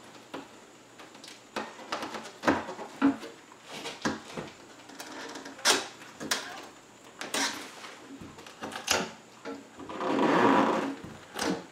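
Hand tool scraping and knocking along the edge of a window pane and its sash, working at the glazing putty: a run of irregular sharp clicks and taps, with one longer rough scrape about ten seconds in, the loudest part.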